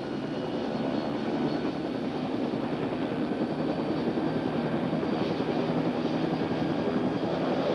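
A Bell OH-58 helicopter's turbine engine and rotor running at high power after the throttle is opened to full, bringing the rotor/engine speed up to about 97%. It is a dense, steady running noise that grows louder over the first second or two and then holds level.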